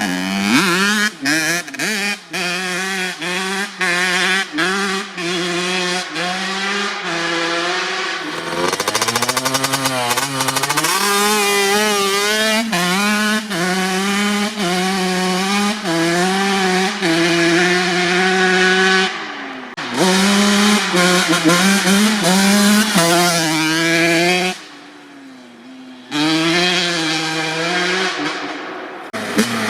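Honda CR85's 85 cc single-cylinder two-stroke engine revving hard, its pitch rising and falling over and over. The first several seconds are choppy, with sharp crackles between quick blips. There is a brief lull about 25 seconds in before the revving picks up again.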